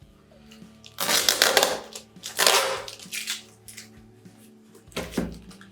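Plastic parcel packaging crinkling and rustling as it is pulled at by hand, with two loud crackling bursts about a second and two and a half seconds in, then softer rustles.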